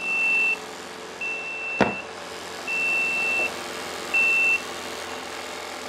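The 12 V diaphragm coolant pump of a home-made TIG water cooler runs steadily while its flow-alarm buzzer gives four high beeps, each shorter than the last, then falls silent: the alarm that sounds until coolant flow through the torch switches it off. A single sharp click comes about two seconds in.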